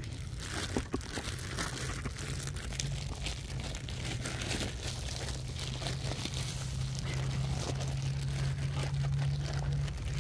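Grass blades rustling and crackling right against the microphone, a scatter of small crackles over a low steady hum.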